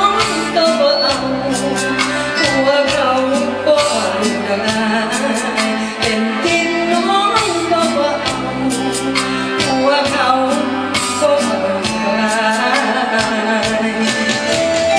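A woman singing live into a microphone over keyboard accompaniment with a steady beat, amplified through stage PA speakers.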